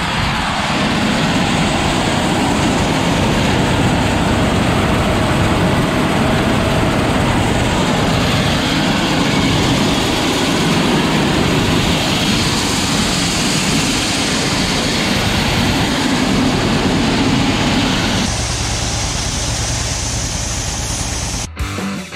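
Grain-unloading auger running with shelled corn streaming through it and pouring into a truck, over the steady running of the John Deere B tractor that drives it. A sudden drop in the sound comes near the end.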